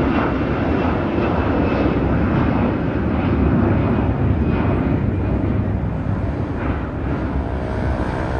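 Jet engines of an Air Canada narrow-body twin-jet airliner at takeoff power as it climbs away after departure: a loud, steady rumble that eases slightly near the end.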